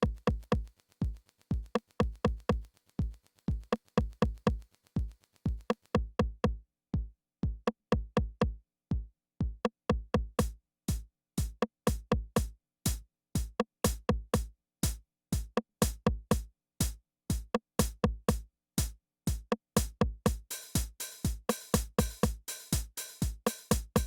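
Roland analog drum machine playing a programmed beat: a steady deep kick with sharp percussion hits over it. The high hi-hat layer drops out about six seconds in and comes back around ten seconds, and a bright cymbal-like wash joins about twenty seconds in.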